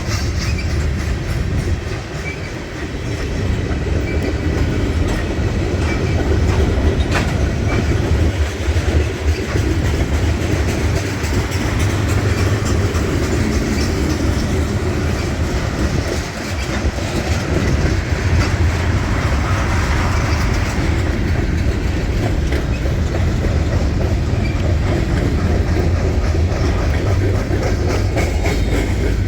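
Freight train cars rolling past, a steady heavy rumble with the clickety-clack of wheels over the rail joints.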